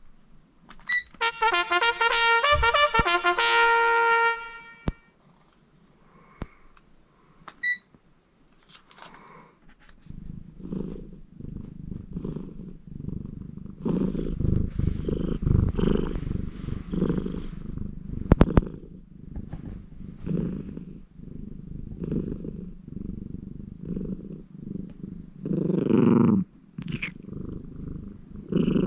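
A short electronic chime melody plays in the first few seconds. After a quiet gap, a domestic cat purrs close to the microphone in a steady pulsing rhythm, with a louder burst near the end.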